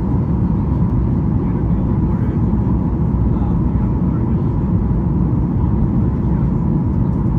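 Steady in-flight cabin noise of a Boeing 737-8 Max on approach: a low, even rumble of engine and airflow noise, heard inside the cabin, with a faint steady high tone above it.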